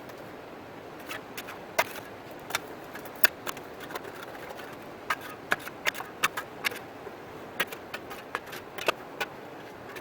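Steady rush of river water, with a string of sharp, irregular clicks and knocks over it from about a second in until near the end.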